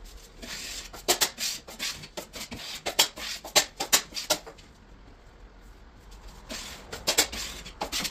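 Drywall finishing hand tools worked against plasterboard: clusters of short, sharp scrapes, clicks and clinks, with a quieter pause of about two seconds midway.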